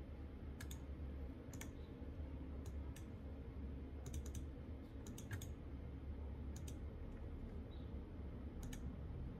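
Computer mouse clicking: scattered single clicks and quick pairs, like double-clicks, over a low steady hum.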